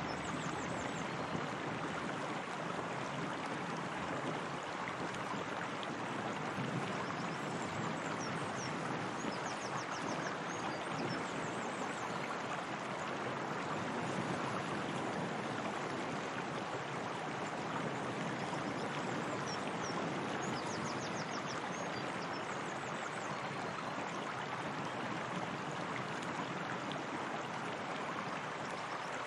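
Steady flowing, splashing water, as from a spring or a small waterfall into a pool. A few faint high chirps come through now and then.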